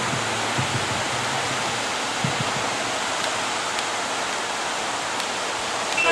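Ocean surf breaking and washing toward the shore: a steady rushing noise of whitewater.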